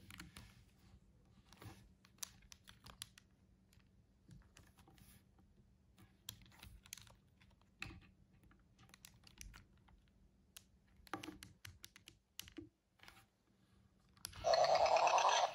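Light clicks and taps of a Hasbro I-Dog robot toy's plastic body being handled and turned over. Just after its face button is pressed, about a second before the end, the I-Dog's speaker starts a loud, warbling electronic sound.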